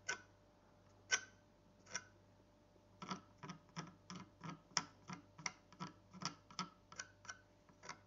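Metal palette knife scratching into wet, textured oil paint on a small canvas: three separate scrapes in the first two seconds, then a quicker run of short scratching strokes, about three a second.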